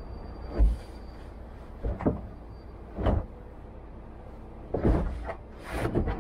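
A mattress being pushed and shifted into a coach's sleeping compartment: about five dull thumps and knocks, some with a short rustle, spread across a few seconds.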